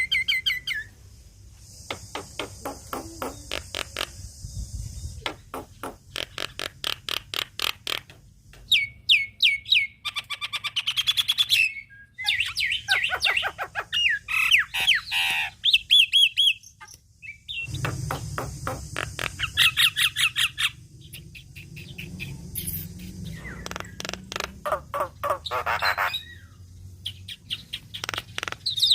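Javan myna in full song: rapid runs of dry clicking notes alternating with whistled notes and chattering trills, broken by short pauses.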